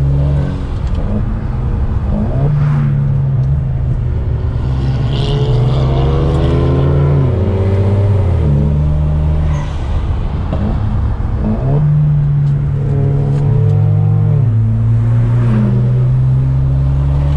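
Car engine revving hard under acceleration, its pitch climbing and then dropping back several times as it shifts.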